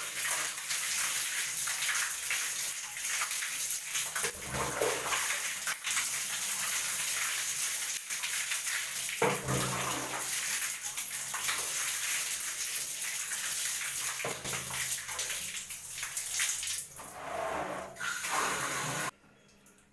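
Water running steadily and splashing as hair is washed, with heavier splashes every few seconds. The flow cuts off suddenly near the end.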